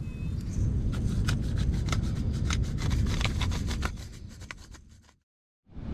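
Cookware and utensils clicking and scraping on a camp cooking table, many short sharp knocks over a low rumble of wind on the microphone. The sound fades out about four seconds in, to a brief silence.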